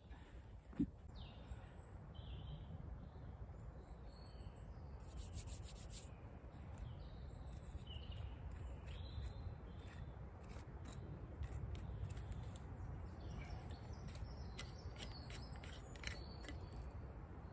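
Wind on the microphone as a steady low rumble, with small birds chirping now and then and intermittent rubbing, scraping and clicking of hands working at gear and the ground.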